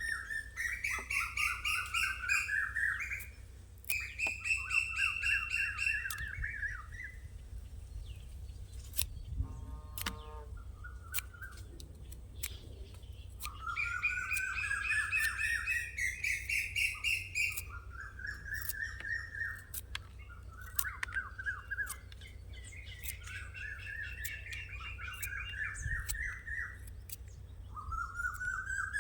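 Birds chirping in rapid, repeated trills that come in bursts of a second or two, several calls overlapping, with scattered faint clicks between.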